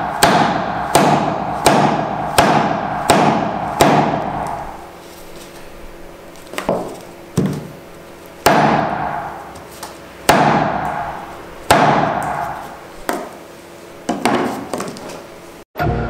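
Meat cleaver chopping through an engine wiring harness onto a wooden table. About a dozen sharp chops, each with a short ringing tail: a quick run roughly every 0.7 s for the first four seconds, then slower chops a second or more apart.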